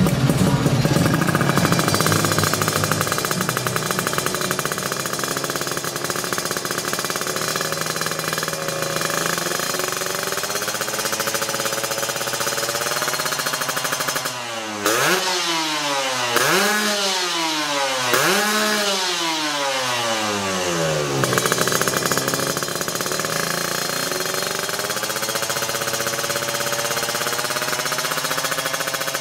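Kawasaki Ninja 150 R two-stroke single-cylinder engine running through a stainless Creampie ZZ1 racing exhaust: a raspy fast idle that creeps slowly higher, then about three quick rev blips in the middle, each rising and falling in pitch, before settling back to a steady idle.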